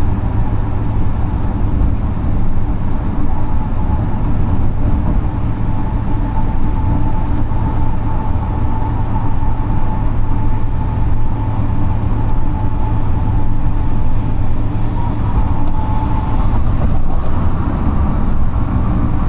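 Road noise heard from inside a moving car: a steady low rumble of tyres and engine, with a faint steady whine through the middle stretch.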